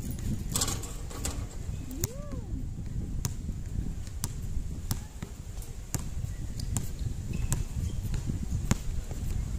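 Basketball bouncing on an outdoor court: about a dozen sharp thuds at uneven intervals, over a low, uneven rumble. A brief rising-and-falling call sounds about two seconds in.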